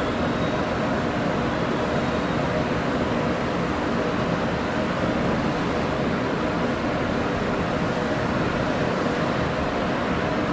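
Steady hum and rush of a Daewoo-built EMU500 electric multiple unit standing at the platform, its onboard equipment running while it waits. The level holds even, with no clanks, horn or door sounds.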